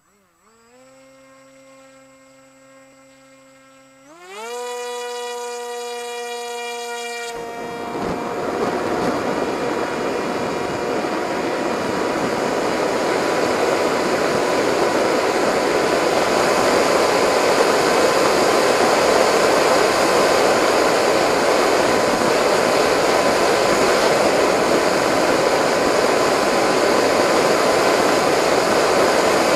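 Onboard sound of a Delta Speed XS RC flying wing. Its motor and propeller whine steadily at low speed, then throttle up about four seconds in with a rising whine. From about seven seconds a loud rush of wind over the model joins in and grows as it flies, with the motor whine holding steady beneath.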